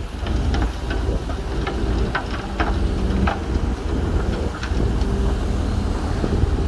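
Heavy diesel earthmoving machinery running steadily with a deep rumble and hum, with a string of short clanks over the first five seconds.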